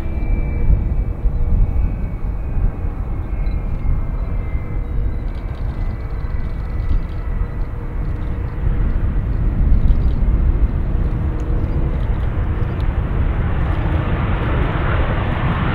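Jet airliner engines running with a steady low rumble, with a faint high whine gliding slowly down in the first few seconds. The jet noise grows louder and hissier near the end.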